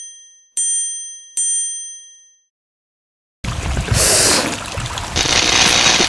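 A bright bell-like ding struck twice, each ring fading away, then a second of silence. About three and a half seconds in, water starts running and splashing, from a pipe into a tub and a wooden channel, with two louder surges of splashing.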